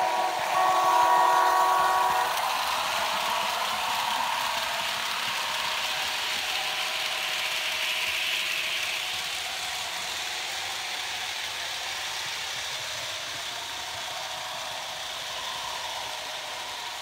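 Märklin HO-scale model of the Union Pacific ALCO P1 diesel locomotives sounding a chord-like horn for about two seconds at the start, followed by the steady whir and rumble of the model train running on its track.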